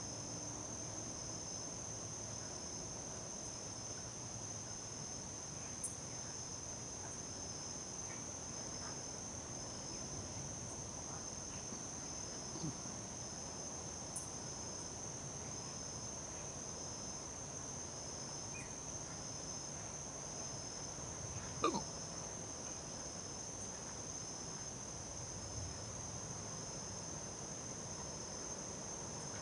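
Steady high-pitched chorus of crickets, with an evenly pulsing chirp just below it. A few faint clicks and one short, sharp sound about 22 seconds in stand out above it.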